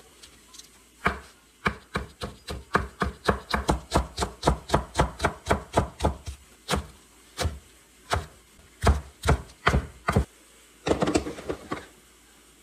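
Chef's knife slicing rolled perilla leaves on a wooden cutting board: a steady run of sharp knife strikes on the board, about three a second, thinning out to scattered strikes after about six seconds, with a short jumble of knocks near the end.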